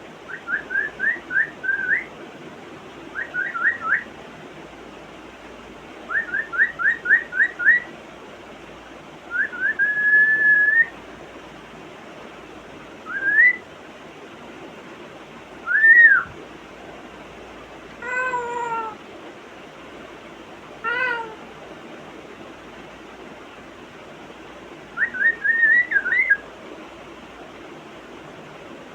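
African grey parrot whistling. There are quick runs of short rising whistle notes, a longer whistle that rises and holds, single upward whistles, two short falling calls about two-thirds of the way through, and another quick run of whistles near the end. A steady hiss sits underneath.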